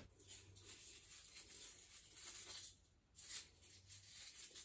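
Near silence, with faint rustling and scratching of artificial Christmas tree branches as an ornament is hung on them; one slightly louder rustle comes a little after three seconds in.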